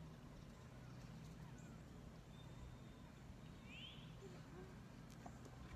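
Near silence: a low steady hum, with one faint, short high chirp about two-thirds of the way through.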